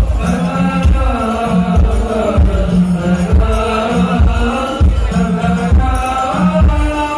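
Music with chanted vocals over a steady deep drum beat, about one beat a second.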